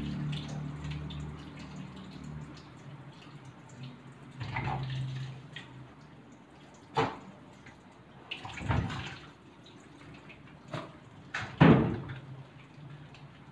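Water dripping and splashing during a dog's bath in a small room, with a low hum over the first couple of seconds and a handful of sharp splashes or knocks, the loudest about twelve seconds in.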